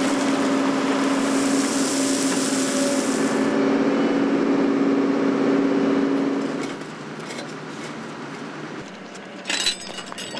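Diesel engine of excavation machinery running steadily at one pitch. It drops away about seven seconds in, leaving quieter worksite noise and a brief metallic clatter near the end.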